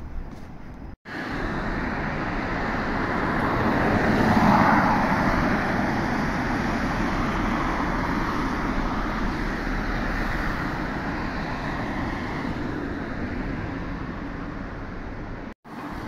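Road traffic on a wide multi-lane street: a steady wash of tyre and engine noise, swelling as a vehicle passes close about four seconds in.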